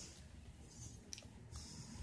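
Faint handling noise from a handheld camera being moved: a low rumble with two soft rustles and a few light clicks.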